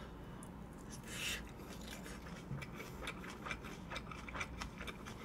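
Close-miked chewing of a mouthful of garlic-chive bibimbap: many small, irregular wet mouth clicks, with a short hiss about a second in.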